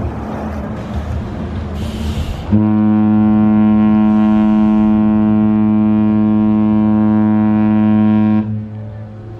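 Departing cruise ship Mein Schiff 5's horn sounding one long, deep, steady blast of about six seconds, starting about two and a half seconds in. A long blast like this is the signal given by a ship leaving its berth. Before and after it, a faint low hum and harbour noise.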